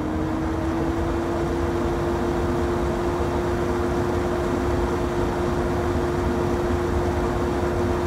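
Loud kitchen exhaust fan (range hood) running at a steady speed: a constant hum at one pitch over a hiss of moving air.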